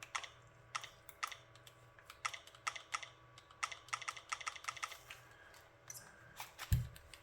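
Buttons on a third-party Joy-Con controller being pressed to test them: quick irregular runs of small plastic clicks, with a single dull thump near the end.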